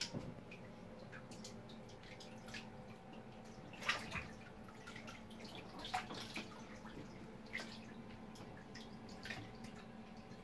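Small, irregular splashes and drips of bathwater as a young Java macaque swims and paddles in a filled tub, the loudest about four and six seconds in.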